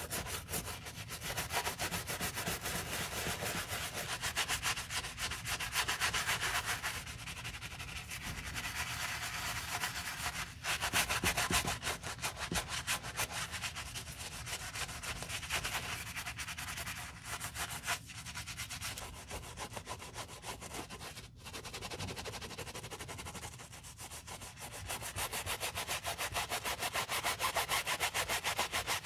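Stiff-bristled wooden shoe brush scrubbing a soap-lathered fabric sneaker upper in quick, continuous back-and-forth strokes: a dense scratchy rasp. It breaks off briefly about ten, twenty-one and twenty-four seconds in.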